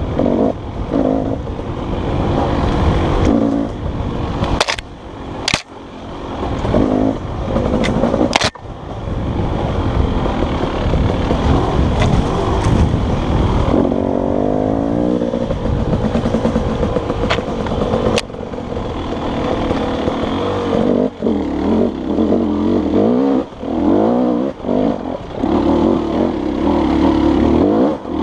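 Enduro dirt bike engine ridden over rough trail, the revs repeatedly rising and falling as the throttle is opened and shut. A few sharp knocks come through in the first third.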